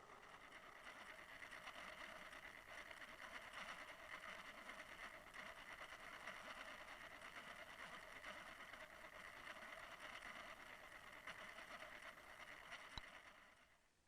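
Faint, steady, muffled hiss of water and a trolling boat's motor, as picked up by a camera towed underwater with the lure. A single sharp click comes near the end, then the sound fades away.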